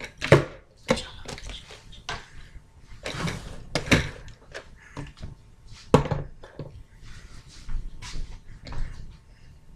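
Partly filled plastic water bottles knocking and thudding on a tabletop as they are flipped, landed and set upright, with a book laid on top of them. A series of sharp knocks, the loudest near the start, about four seconds in and about six seconds in.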